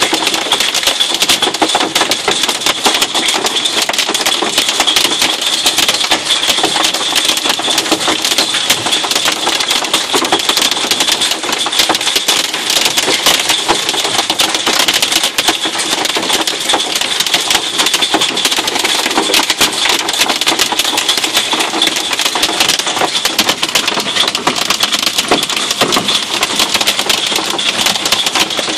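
Hail pelting the roof and windscreen of a vehicle, heard from inside the cab: a loud, steady clatter of countless small impacts.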